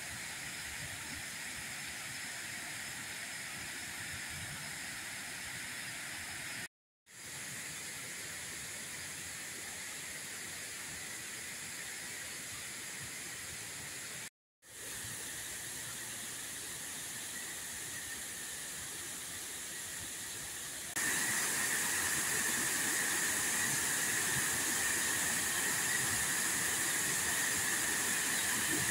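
Water pouring over a low concrete dam spillway and churning into white water below: a steady rushing noise. It drops out for a moment twice and gets louder for the last part.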